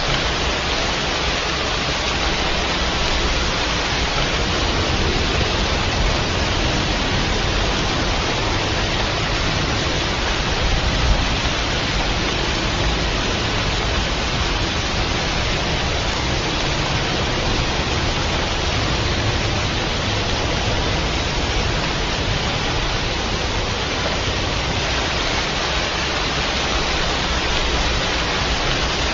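Steady heavy rain, an even hiss without pause, with one small brief bump about eleven seconds in.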